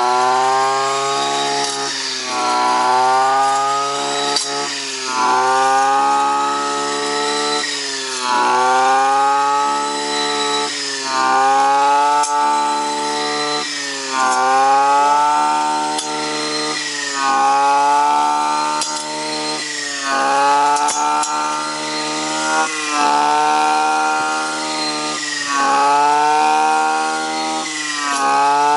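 Brush cutter engine running at high revs while its disc blade mows through dense green growth. The pitch dips and climbs back about every two seconds as each swing loads the blade.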